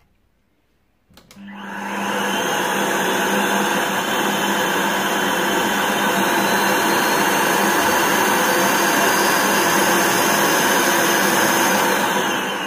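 Philips Marathon Ultimate vacuum cleaner motor switched on with a click about a second in, spinning up to full speed and running steadily, then starting to wind down near the end. The motor sounds healthy and runs smoothly.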